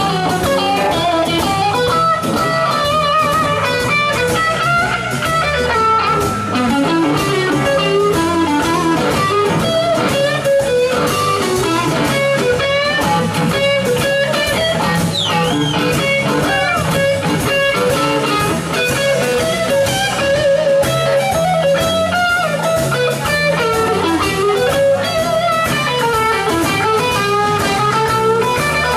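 Live blues band playing an instrumental: electric guitar lead lines with bent notes over electric bass and drum kit.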